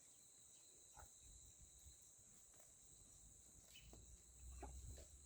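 Near silence with a faint, steady high-pitched insect drone, which is taken for a distant cicada. A couple of faint short chirps and a soft low rumble come near the end.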